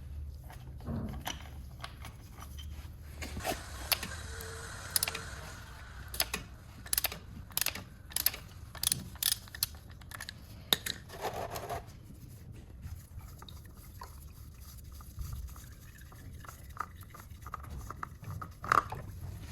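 Sharp metallic clicks, knocks and scraping of a 67 mm oil-filter cap wrench being worked to remove the oil filter of a Suzuki TL1000S. The clicks come irregularly, thickest in the middle of the stretch, with a short scraping hiss near the start.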